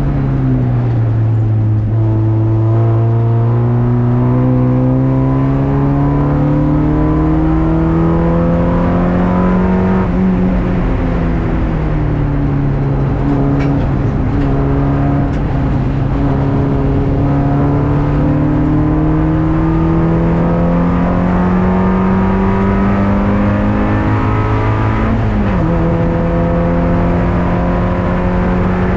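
Race car engine heard from inside the stripped cabin under steady load. The revs fall briefly near the start and again about ten seconds in, each time followed by a slow climb, then drop sharply about 25 seconds in, as at a gear change.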